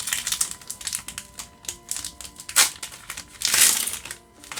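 Foil booster-pack wrapper crinkling and tearing as it is handled and opened, in a run of short crackles with two louder bursts about halfway through and near the end.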